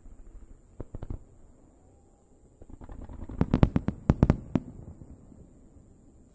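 Aerial fireworks shells bursting: a few bangs about a second in, then a rapid string of sharp, loud reports a little past the middle, fading away after.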